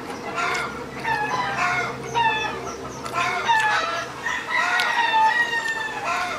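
Chickens clucking and calling over and over, with one longer drawn-out call about four and a half seconds in.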